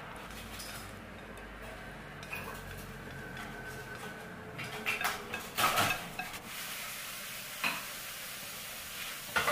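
Metal utensils clinking and scraping against a ceramic plate while spaghetti is plated, with a few sharp clicks, the clearest about halfway through, over a steady background hiss.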